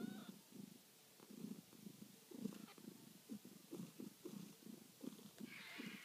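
Mother cat purring faintly and rhythmically while nursing her week-old kittens.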